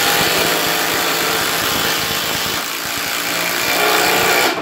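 Makita 18-volt cordless impact driver hammering a 4-inch square-drive deck screw into solid wood: a rapid, continuous rattle of impacts that stops abruptly at the end as the screw is driven home.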